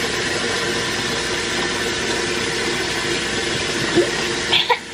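Bathroom tap running with a steady rush of water, with a few short knocks near the end.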